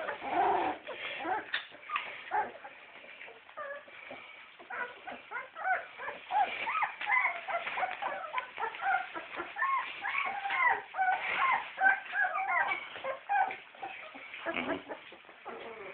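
A litter of Daniff puppies squeaking and whimpering while they nurse: many short, high squeaks overlapping one another, busiest through the middle.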